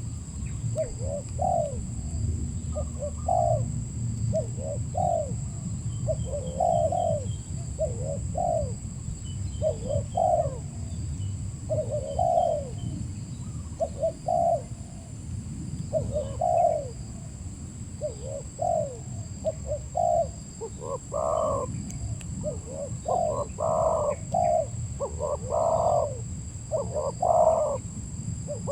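Spotted dove (tekukur) cooing over and over in short repeated coo phrases, louder from about two-thirds of the way in, over a steady low rumble.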